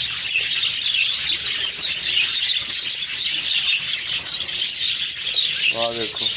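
A flock of small parrots in a colony cage chirping and chattering continuously in a dense, high-pitched din. Near the end, a brief low human voice sounds over it.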